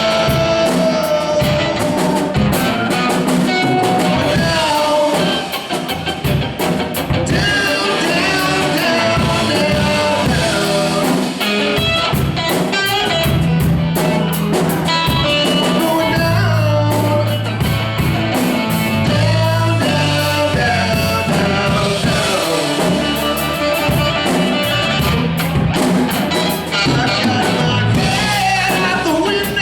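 Blues-rock band playing, with singing over electric guitar and drums.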